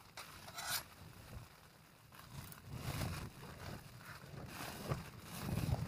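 Spoon scraping and stirring rice and flaked fish around a metal camping pot, in short irregular bursts. Dull low rumbles run under it, the loudest near the end.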